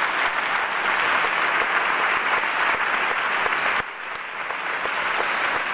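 Audience applauding steadily, with a brief dip in level about four seconds in.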